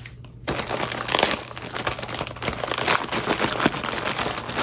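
Clear plastic film wrapping crinkling as it is slit with a small blade and pulled open by hand, starting about half a second in.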